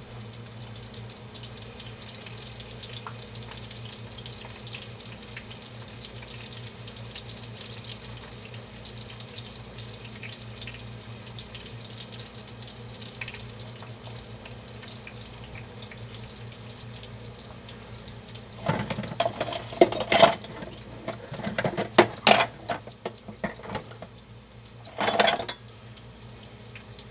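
Hot dogs deep-frying in a pot of oil: a steady crackling sizzle that sounds like applause, over a steady low hum. From about 19 s in, a few seconds of louder knocks and clatter break in, the last burst near 25 s.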